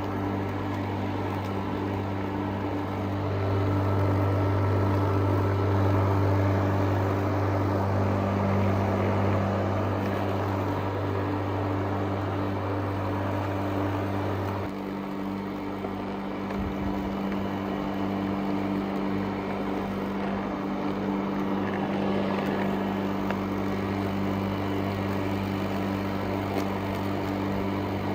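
Craftsman walk-behind lawn mower's small petrol engine running steadily after restoration, its low drone shifting a little about fifteen seconds in.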